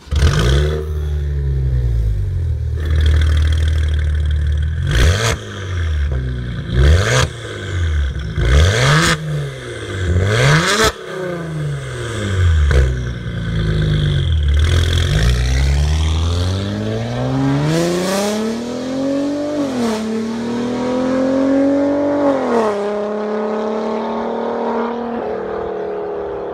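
Maserati Ghibli S's twin-turbo V6 through an Armytrix valved full exhaust, revved hard about eight times while standing, with sharp pops as the revs fall. The car then pulls away and accelerates through two upshifts, its sound falling off as it goes.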